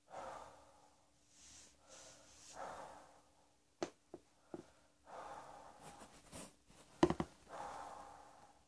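A person breathing audibly in and out in a small room, with a few small mouth clicks near the middle and one short, sharp throat sound about seven seconds in.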